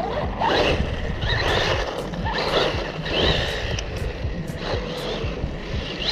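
MJX Hyper Go 1/16 brushless RC truck driving on wet ground, its throttle punched in short repeated bursts about once a second, giving a rasping, swishing whir.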